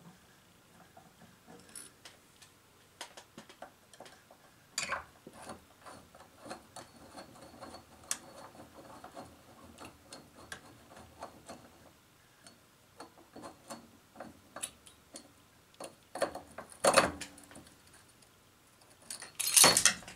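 Scattered small clicks, taps and scrapes of hands working loose an old porcelain light fixture, then near the end a loud burst of clattering as the porcelain fixture breaks apart into pieces.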